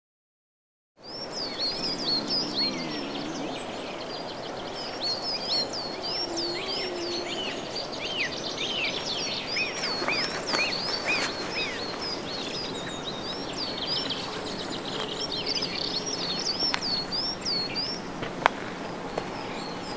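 Small birds chirping and singing in quick repeated high phrases over a steady outdoor background hiss, starting about a second in. A single sharp click near the end.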